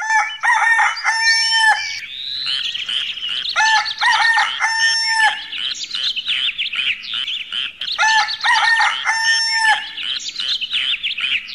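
Birds calling: a loud, repeated pitched call comes three times, about four seconds apart, over continuous high chirping of small birds.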